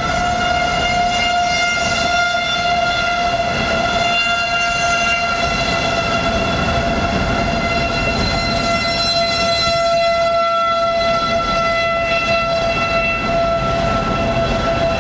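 Outdoor tornado warning siren sounding one steady, unbroken tone with strong overtones, holding nearly the same pitch throughout.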